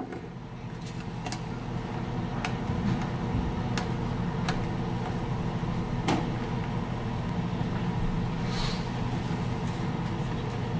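Steady low hum of a running kitchen appliance, with a few sharp clicks and taps as plastic food containers and a spoon are handled on the counter.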